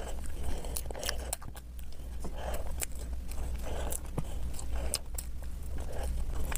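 Close-miked wet chewing and biting of soft Swiss roll sponge cake, with smacking chews every half second or so and sharp clicks of lips and tongue.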